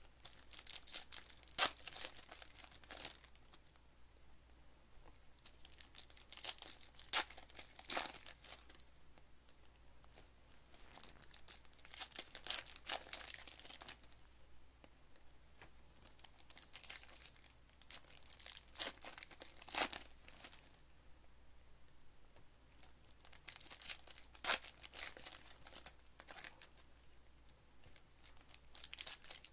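Trading card packs being torn open by hand, their plastic wrappers crinkling and crumpling in repeated bursts a few seconds apart as one pack follows another.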